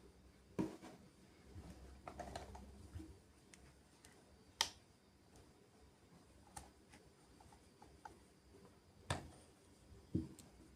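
Faint, scattered clicks and light knocks of hard objects being handled, about half a dozen a second or more apart, the sharpest about four and a half seconds in.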